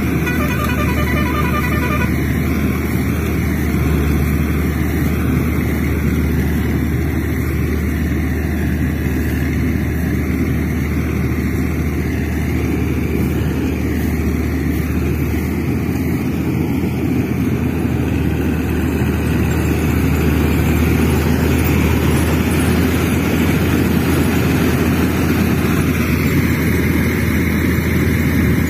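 A heavy vehicle engine running steadily with a deep, even rumble, as of a backhoe loader or truck. A brief rapid pulsing tone sounds in the first two seconds.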